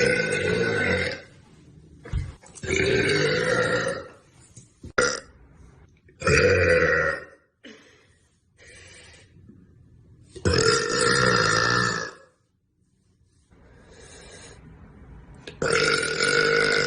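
A woman burping loudly, a series of long drawn-out belches, five of about a second or more each with short pauses between, plus one brief burp about five seconds in.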